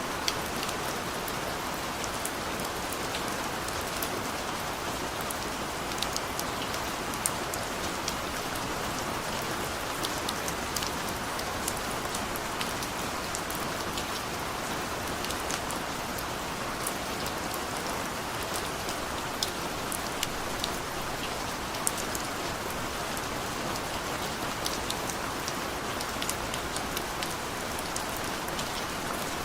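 Heavy rain falling steadily, with many sharp individual drop hits scattered throughout.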